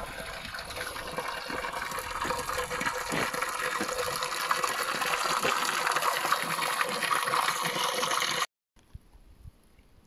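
Flowing water: a steady rushing that grows louder and cuts off abruptly about eight and a half seconds in.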